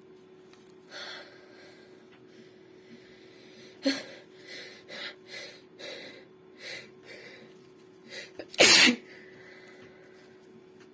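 A woman's sneeze: a sharp catch of breath about four seconds in, a string of short hitching breaths building up, then one loud sneeze near the end.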